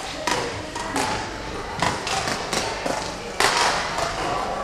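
Badminton rally: rackets striking the shuttlecock in sharp smacks roughly every second, about five hits with the loudest about three and a half seconds in, together with thuds of footsteps on the hall's court floor.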